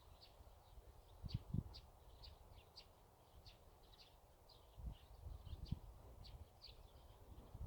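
Small birds chirping faintly: many short, high chirps, a few each second, with a couple of low thumps about a second and a half in and again around five seconds.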